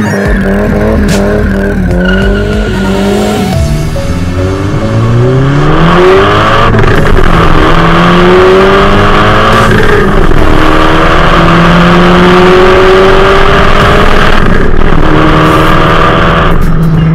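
Turbocharged CA18DET four-cylinder of a 1992 Nissan 200SX revving hard, its pitch climbing and dropping several times, with the tyres squealing under wheelspin, loudest from about five seconds in.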